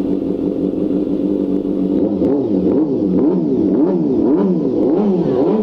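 Carbureted Honda CBR inline-four motorcycle engine idling steadily, then revved up and down in quick throttle blips about twice a second. It is running on a freshly repaired carburetor that previously would not hold idle.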